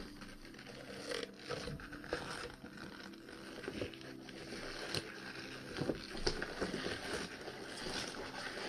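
Gloved hands handling a rubber Soviet PBF EO-19 gas mask: soft rustling and creaking with scattered small clicks and knocks.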